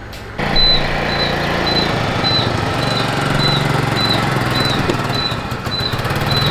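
A small motorbike engine running, its pitch shifting slightly, with a short high electronic beep repeating about twice a second, like a turn-signal buzzer. The engine starts abruptly about half a second in.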